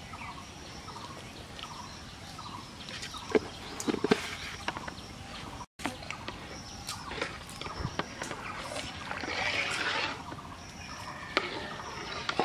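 Outdoor rural ambience with birds calling now and then, a few sharp clicks and taps, and a short stretch of rustling scraping about ten seconds in.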